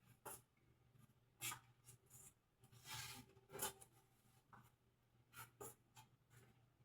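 Faint, irregular rustles and small clicks, about nine in all, with a longer scrape near the middle.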